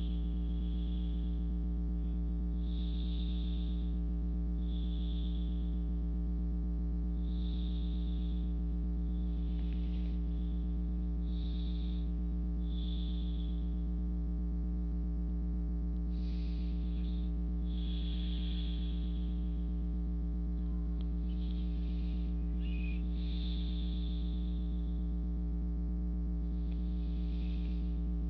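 A steady low electrical hum with soft, slow breaths close to the microphone every couple of seconds, pausing for a few seconds midway.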